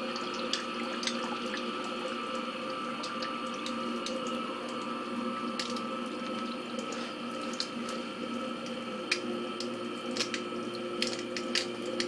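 Submersible sump pump humming steadily while water trickles and drips into the crock. The pump has switched on but is hesitating and not yet pumping out.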